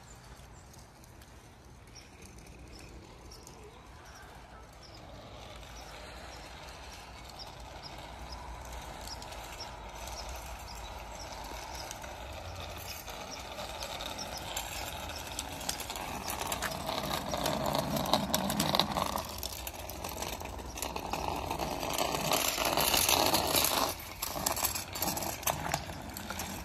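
Children's small bicycles rolling over wet, slushy asphalt, the tyres hissing. The noise grows steadily louder as the bikes come close.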